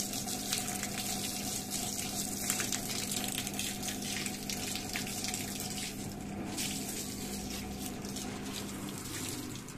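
Edesa front-loading washing machine moving water through its drum: a steady rush of water with a constant machine hum, which cuts out about nine seconds in.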